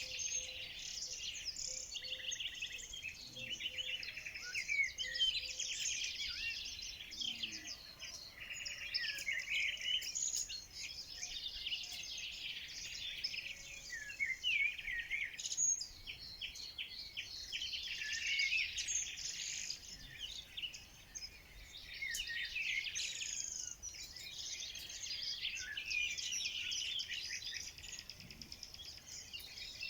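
Many small birds singing and chirping at once, a dense chorus of high twittering trills and chirps with brief lulls.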